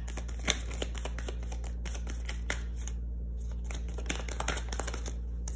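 Tarot cards being shuffled and drawn by hand: a run of quick papery clicks and flicks, with one sharper snap about half a second in, over a steady low hum.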